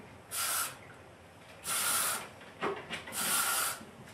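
Aerosol spray can misting hair: three short hissing sprays, about a second and a half apart.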